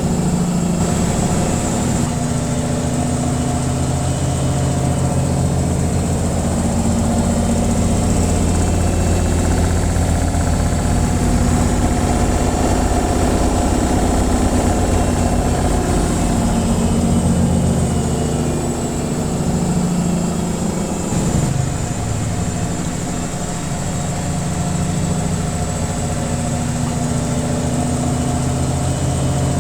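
Washing machine in its spin cycle: a loud, steady hum from the motor and spinning drum, dipping slightly about three-quarters of the way through.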